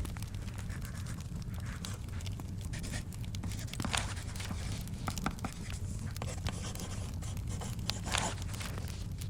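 Paper rustling as pages are turned, loudest about four and eight seconds in, over scattered small crackles and a steady low rumble.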